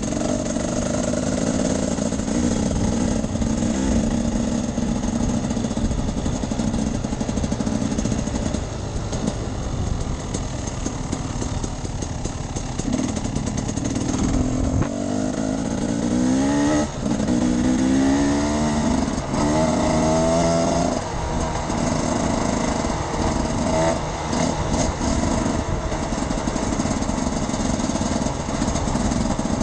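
Enduro motorcycle engine running while riding off-road. About halfway through, the revs climb several times in quick succession as it accelerates.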